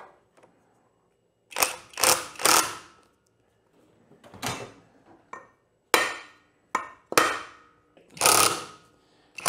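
Cordless impact driver with a 14 mm socket hammering on a flywheel puller's bolt to pull the flywheel off a Honda CRF450R crankshaft, in a string of short bursts with pauses between, the longest near the end.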